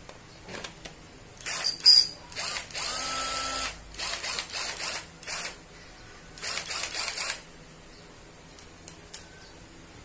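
National 12V cordless drill/driver motor run on the trigger in several short bursts for a test after repair, one held for about a second and a half with a steady whine. A sharp click comes near the start, and two small clicks come near the end.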